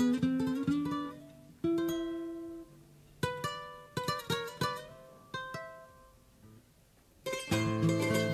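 Instrumental Andean yaraví played on plucked strings: single notes ring out and die away one after another. A near pause comes about six to seven seconds in, then fuller, denser playing with lower notes starts near the end.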